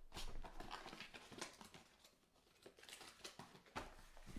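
Faint rustling and light taps of foil-wrapped trading card packs and a cardboard card box being handled and set down on a table, busiest in the first second and a half and again briefly near the end.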